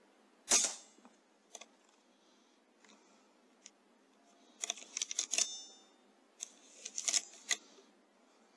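A single shot from a Weihrauch HW100S .177 pre-charged air rifle about half a second in: one short, sharp pop. Later come two brief runs of faint clicks and rattles.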